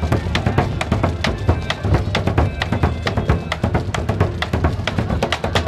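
Wine-barrel drums played by a percussion group in a fast, steady beat: deep booming strokes with sharp, lighter strikes packed in between.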